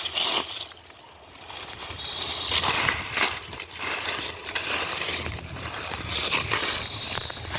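Shallow muddy water sloshing and splashing in irregular surges, as when someone wades and works their hands through it.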